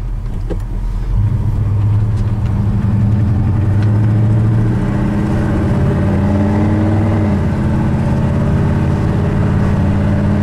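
Chevy C30 truck's 383 stroker small-block V8 running under way, pulling harder about a second in and then droning steadily, with a brief dip in pitch around seven seconds in.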